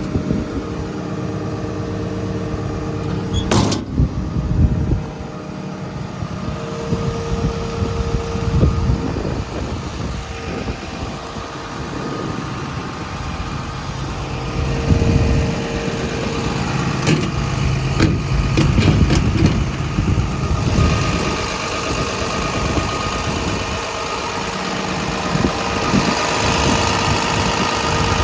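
Komatsu PC210LC-10 excavator's six-cylinder diesel engine idling steadily. There is a sharp clunk about four seconds in and a quick run of metallic clicks about two-thirds through. After that the engine sound grows louder and brighter.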